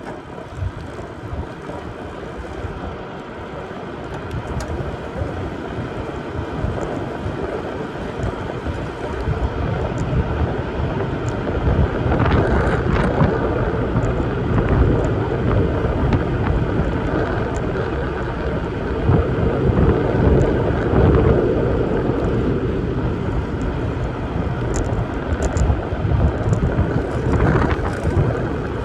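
Wind rushing over the microphone of a moving bicycle, mixed with the hum of its tyres on pavement. It grows louder over the first dozen seconds, then holds steady.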